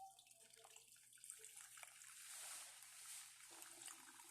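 Faint trickling of blended watermelon juice as it is poured through a strainer.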